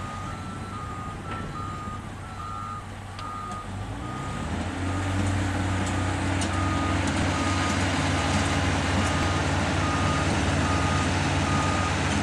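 A construction vehicle's reversing alarm beeping at a steady pace, over a heavy diesel engine running. About four and a half seconds in, the engine gets louder and holds a steady, even note.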